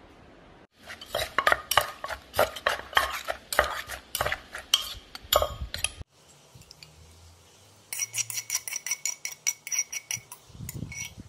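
Quick clinks, knocks and scrapes of a spoon working papaya salad out of a clay mortar onto a ceramic plate. There are two runs of rapid taps with a pause between them, and the later taps ring.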